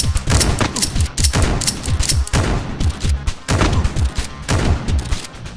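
Several bursts of rapid gunfire sound effects with deep thumps, with short breaks between them, over background music.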